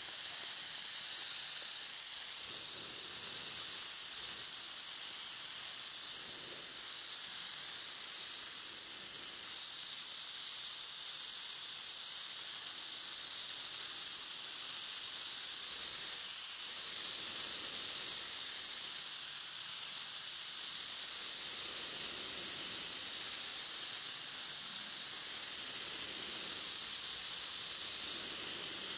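Compressed air hissing steadily from a gravity-feed spray gun, blown over a freshly sprayed primer coat to flash it off until it turns matte and is ready for the next coat. The hiss swells and eases slightly as the gun moves.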